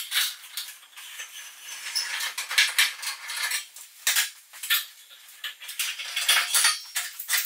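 Clamps being undone and a straight edge handled on a steel VW sliding-door panel: a run of sharp clicks and taps with scraping in between.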